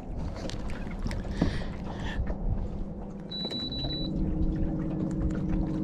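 Water splashing and handling noise as a hooked crappie is landed beside the boat. About halfway through, a short run of high beeps sounds and a steady motor hum starts.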